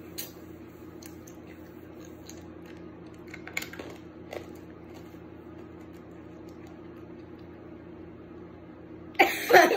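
Faint chewing and mouth clicks of children eating sour candy, over a steady low hum in a small room; a loud burst of voices breaks in near the end.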